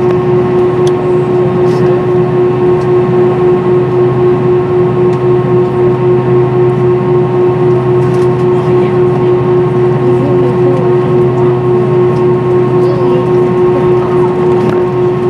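Airbus A320-232 jet airliner heard from inside the passenger cabin while taxiing: its IAE V2500 engines and cabin air give a steady loud hum with a strong droning tone held throughout.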